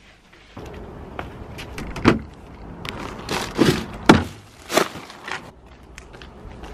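Camera handling noise while walking: rustling with several knocks and thuds, the loudest about four seconds in.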